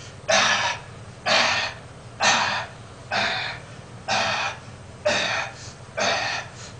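A man breathing hard and rhythmically while exercising, with a forceful breath about once a second.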